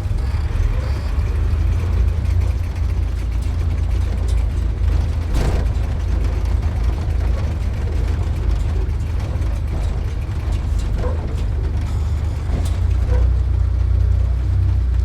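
Sports car driving slowly, its engine giving a steady low rumble, with a few light knocks or rattles along the way.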